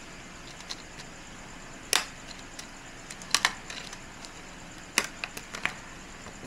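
Clear plastic packaging handled in the hands, giving short, sharp crinkles and clicks: one about two seconds in, a pair around three and a half seconds, and a quick cluster around five seconds.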